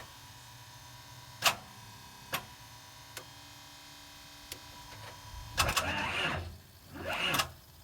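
A motor home's starter cranks the engine in two short bursts near the end without it catching, after a few sharp clicks. The batteries are too weak for the big engine: their voltage sags to about 10 V under the starter's draw.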